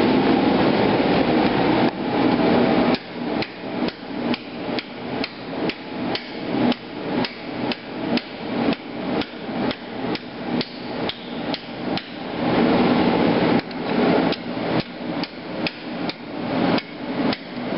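Hand hammer striking red-hot steel of a machete blank over the anvil horn in an even rhythm of about two to three blows a second, forging the handle end into an integral socket. A steady roaring noise fills the first few seconds, and again briefly about twelve seconds in, between two runs of blows.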